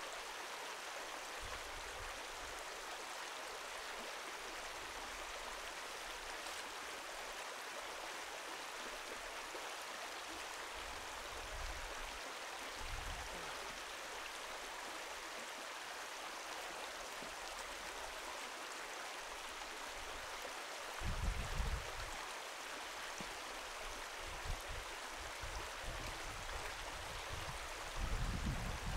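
Steady rush of a running stream, with a few dull low bumps about two-thirds of the way through and again near the end.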